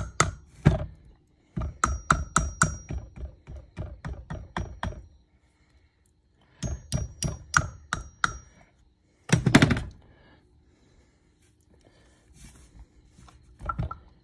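Hammer tapping the metal pad retaining pins into a Girling-style brake caliper of a 1965 Volvo 122S. The taps come in several quick runs of about four or five a second, some with a faint metallic ring, and there is a louder flurry of blows about nine seconds in. Lighter taps follow near the end.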